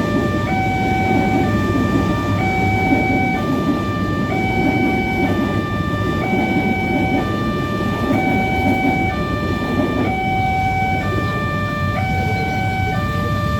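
Railway level-crossing warning siren sounding a steady two-tone alternation, each pitch held for about a second, over a constant low rumble of traffic.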